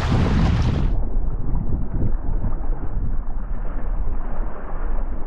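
Strong wind buffeting the microphone over the wash of waves around a kayak, a heavy low rumble. About a second in the sound turns muffled, losing all its highs, and opens up again near the end.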